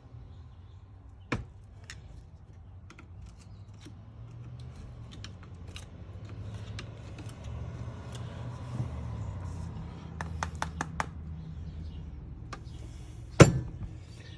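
Small clicks and taps of metal parts and tools being handled while the wiper motor is worked on, with a sharp knock about a second in and a louder knock near the end, over a low hum.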